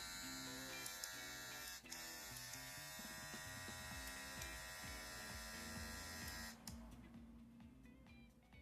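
Electric hair clipper running steadily with a high buzzing hum, working again after its broken button was repaired. It dips briefly about two seconds in, then cuts off suddenly near the end.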